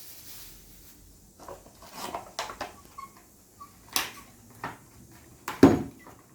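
Small items and packaging being handled: a brief rustle, then a string of light clicks and knocks, with one heavier thump near the end.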